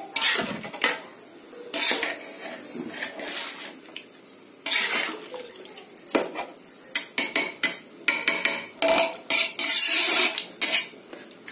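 A metal ladle scraping and clinking against a metal pot in irregular strokes while rice is stirred into boiling water.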